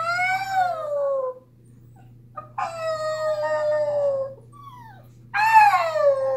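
Dog howling: three long howls in a row, each sliding downward in pitch as it ends.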